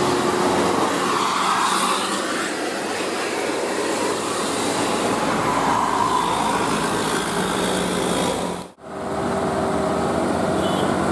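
Road traffic: large buses running past with steady engine and tyre noise, and no horn sounded. The sound drops out for a moment near the end, then resumes.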